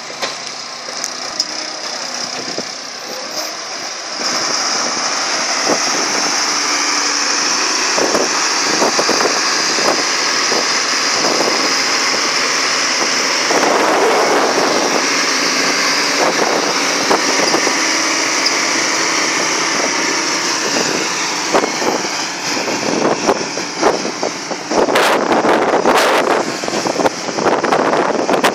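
International 530 excavator running, its engine noise stepping up about four seconds in, with a steady high whine and irregular clanks and knocks that grow more frequent near the end.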